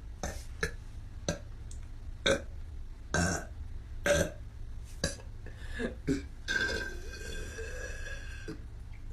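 A woman burping: a string of short, small burps, roughly one a second, the strongest about two to four seconds in.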